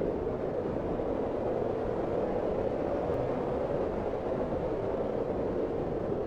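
Storm wind blowing steadily, an even, low rushing with no gusts or breaks.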